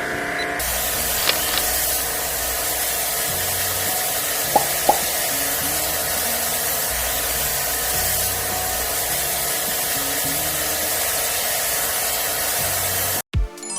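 High-pressure water spray hissing steadily while washing out an air conditioner, with faint background music and a few sharp clicks. It cuts off suddenly near the end into a short chiming jingle.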